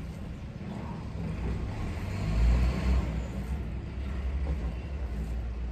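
A low rumble that swells to its loudest about two and a half seconds in, then eases off again.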